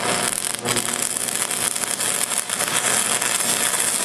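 Stick welding arc, just struck by stabbing the electrode at the plate, burning with a steady crackling hiss.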